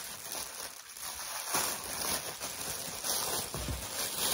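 Clear plastic packaging bag crinkling and rustling as a bandana is handled and pulled out of it.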